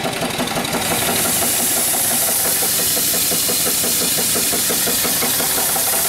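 Small live steam engine running with a steady rhythmic beat. About a second in, the boiler's steam blower is opened and a steady high hiss of steam comes on and holds: the blower jet drawing up the draft on the coal fire.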